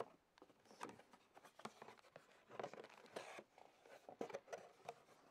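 Faint rustling, scraping and small clicks of a cardboard product box and its packaging being opened and handled.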